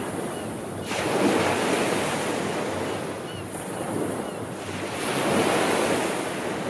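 Sea waves washing onto the shore, with the surf swelling twice: about a second in and again around five seconds in.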